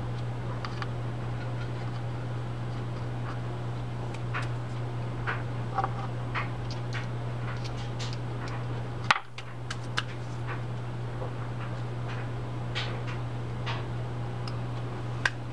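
Small, irregular clicks and ticks as a pick and the drag washers are worked out of the rear drag of a spinning reel, with one sharper click about nine seconds in, over a steady low hum.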